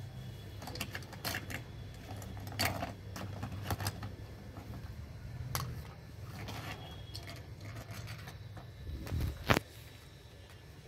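Plastic toy dishes and utensils clicking and knocking together as they are handled, a scattered run of light taps with one sharper knock near the end.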